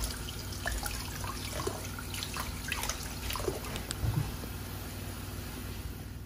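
Kitchen faucet running in a steady stream into a bowl of water, with small splashes as raw chicken pieces are rinsed and handled under it.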